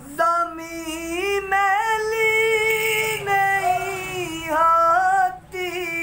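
A man singing a naat unaccompanied in a high voice, holding long, ornamented notes that bend up and down, with no clear words. There is a short break about five seconds in.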